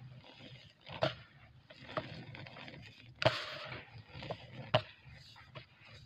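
Dry cement lumps crumbled by hand: a few sharp crunches as chunks snap apart, with powder sifting down into a basin between them. The loudest crunch comes about three seconds in and is followed by about a second of gritty hiss.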